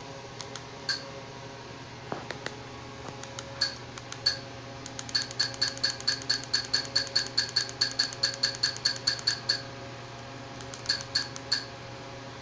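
Roku TV menu navigation clicks as the selection steps through the home-screen channel grid. A few single clicks come first, then a fast even run of about five clicks a second for several seconds, then three more near the end, over a steady low hum.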